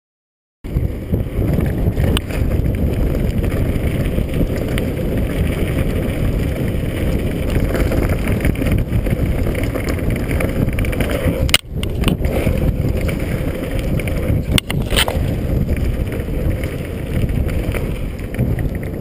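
Wind buffeting a bike-mounted camera's microphone over the rumble of mountain-bike tyres on a dirt trail during a fast descent, with two sharp knocks about three seconds apart past the middle.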